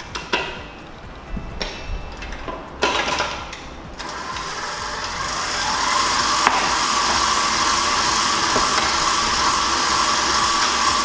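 A spatula scraping and tapping around a stainless steel mixing bowl and beater paddle, then about four seconds in a bowl-lift stand mixer's motor starts, builds over a couple of seconds and runs steadily, beating the butter, sugar and egg batter.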